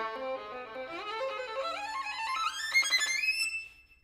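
Solo violin playing a long ascending run, climbing note by note from its low register to a high held note, then fading out shortly before the end.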